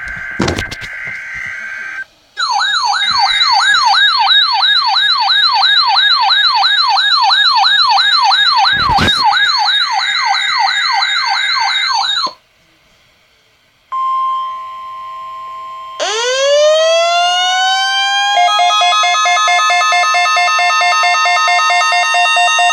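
Emergency alert test tones: a brief buzzy data burst with a click, then an electronic siren tone warbling up and down about three times a second for some ten seconds. After a short break comes a steady single tone, then a siren tone that sweeps up and holds steady while a pulsing tone joins it.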